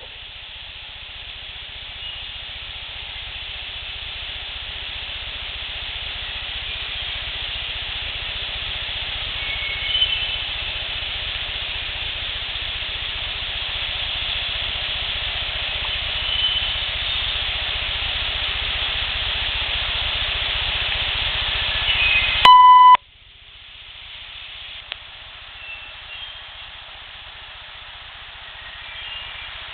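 Boosted outdoor field-recording hiss that slowly grows louder, with a few faint short chirps in it. About 22 seconds in a loud, short electronic beep cuts in, and the recording drops to a quieter hiss, as at a join between clips.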